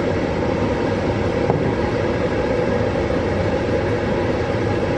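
A steady, unbroken rumbling machine noise, with a faint tap about a second and a half in.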